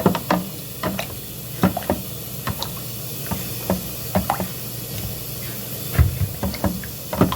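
A spoon stirring a honey mixture in a container, with irregular sharp clicks as it knocks against the sides.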